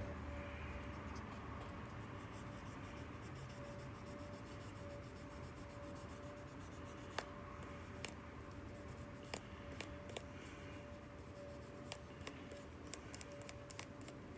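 Faint rubbing and scratching of a 4,000-grit sanding pad worked by hand over a tobacco pipe stem's logo, with a few light clicks scattered through the second half, over a faint steady hum.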